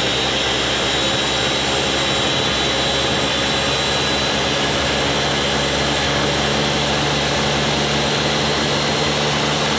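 Ninja Professional Plus 1400-watt blender running steadily, blending milk, malted milk powder and ice cream into a chocolate malt: an even motor hum with a high tone over the rush of the churning liquid.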